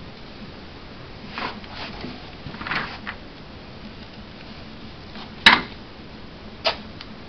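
White athletic tape being pulled off the roll in several short rasps, with a sharp snap about two thirds of the way in that is the loudest sound.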